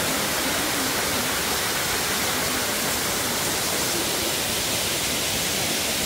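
Waterfall rushing steadily: an even, unbroken wash of falling-water noise.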